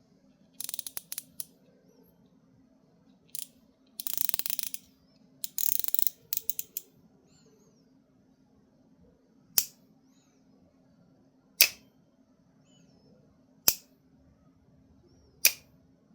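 Small spinning reel being worked by hand: bunches of rapid mechanical clicking, densest about four seconds in, then four single sharp snaps about two seconds apart.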